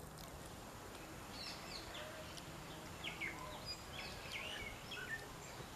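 Small birds chirping: a string of short, quick chirps starting about a second in, over a steady low hiss of outdoor background noise.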